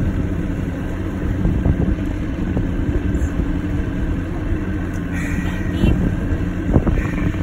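Motorboat engine running steadily as the boat cruises, a constant low rumble. There are a couple of brief thumps near the end.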